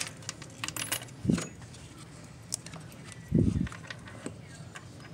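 Scattered metal clinks and light clicks of a spark plug socket and extension being worked in the engine's spark plug tubes while new spark plugs are seated. Two dull thumps stand out, about a second in and again past the midpoint.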